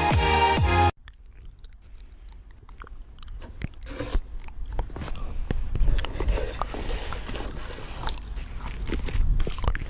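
Electronic dance music cuts off abruptly about a second in. Then close-up paper crinkling and crunching in quick irregular crackles and scrapes, growing louder, as a paper squishy is squeezed and handled.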